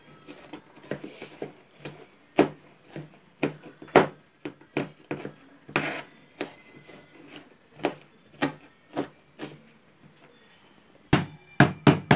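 Knife chopping on a plastic cutting board, mincing onion, garlic and ginger: irregular sharp knocks, about one or two a second, then a quick run of louder chops near the end.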